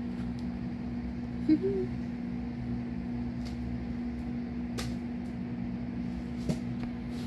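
A steady low machine hum with a constant pitch. There is one short blip about a second and a half in, and a few faint clicks.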